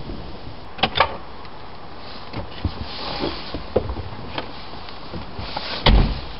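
Car door of a 1973 Reliant Scimitar GTE shut with a heavy thud near the end, after a few light knocks and clicks as someone settles into the driver's seat.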